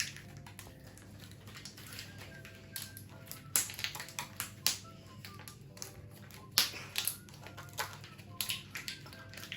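Plastic bubbles of a vitamin blister tray being pressed in one after another on a homemade pop-it, giving irregular sharp clicks and crackles. Faint background music underneath.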